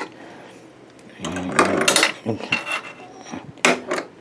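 Clattering handling noise and sharp clicks from a Sears record changer being worked by hand, its spindle and front control lever being set, with two quick clicks near the end.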